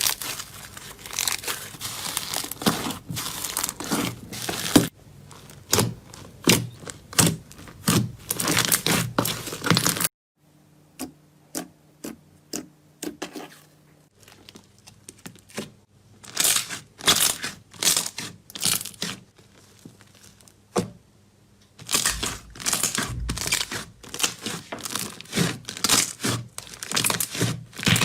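Slime being squeezed and stretched by hand, giving dense runs of crackling and popping. The sound comes in several short clips that start and stop abruptly, with a quieter stretch of sparser pops partway through.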